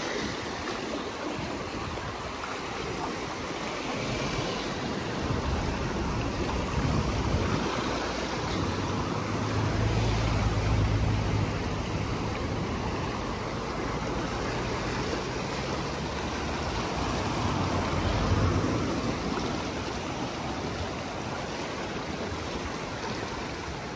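A river in flood rushing steadily, fast and turbulent. A low rumble of wind on the microphone swells about ten seconds in and again briefly near eighteen seconds.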